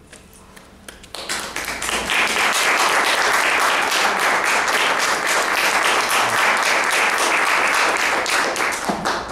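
Audience applauding: many hands clapping together, starting about a second in and stopping abruptly near the end.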